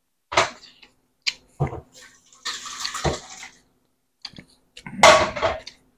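Kitchen handling sounds: several separate knocks and clatters, with two bursts of splashing liquid, the second near the end and the loudest.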